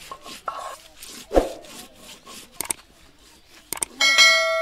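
A stone roller rubbing and scraping back and forth on a stone grinding slab (shil-pata), crushing red chillies in quick strokes of about three a second. Near the end a couple of clicks and then a loud, bright ringing chime, a subscribe-button sound effect, ring out over it.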